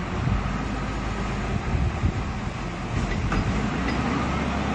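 Wheel loader's diesel engine running as the machine moves, a steady low rumble, with a few light metallic clinks about three seconds in.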